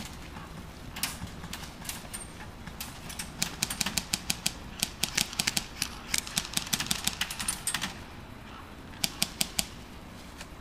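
Airsoft guns firing: sharp snapping shots, a lone shot about a second in, then irregular strings of rapid shots for several seconds, a pause, and a short burst near the end.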